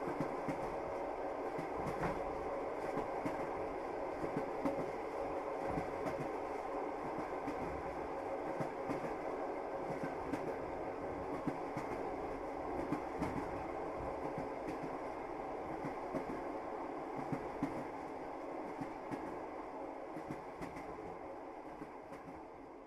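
Passenger train running on the rails: a steady rumble with irregular clacks of the wheels over the track, slowly fading out toward the end.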